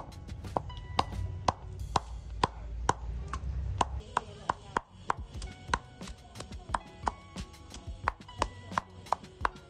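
Wooden pestle pounding a moist yellow kroeung herb paste in a wooden mortar: sharp, ringing knocks at about two strokes a second.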